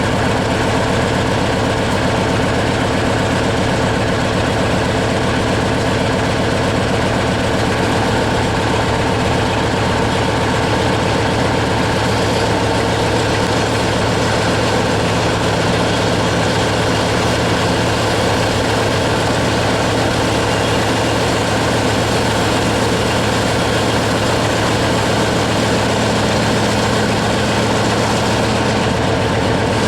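A heavy engine running steadily, its low hum shifting in pitch a little about twelve seconds in.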